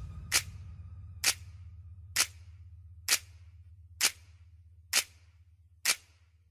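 Seven sharp, clock-like ticks, evenly spaced a little under a second apart, over a low tone that slowly fades out, in a break in the background music.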